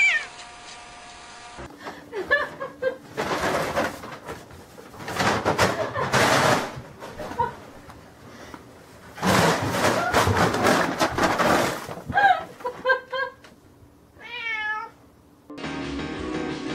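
Cats meowing and yowling in short runs of calls, with loud noisy stretches in between and one long wavering yowl near the end; background music starts just before the end.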